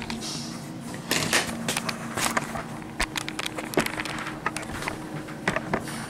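Handling noise on a tabletop: a run of irregular rustles, scrapes and small knocks as the spiral sketchbook and the camera are moved, over a steady low electrical hum.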